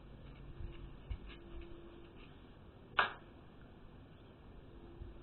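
One sharp knock about three seconds in, over faint low thumps and a faint steady hum.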